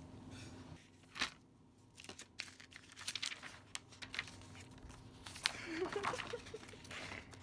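A photo print and a cheap picture frame being handled: paper and wrapping rustling and crinkling, with a sharp click just after a second in and a run of small clicks and taps from the frame and its backing.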